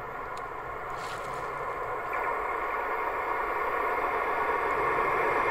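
ER2 electric multiple unit approaching on the track: its running noise grows steadily louder as it nears.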